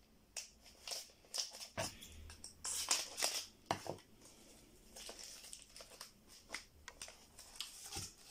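A taped cardboard book mailer being opened by hand: scissors snipping the packing tape at first, then cardboard flaps pried apart and rustled, with plastic crinkling as the sleeved comics are slid out. The sound is a run of short, sharp rustles and clicks.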